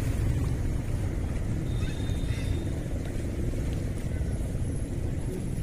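Steady low rumble of wind buffeting the microphone beside the flooded river, with a few faint high chirps about two seconds in.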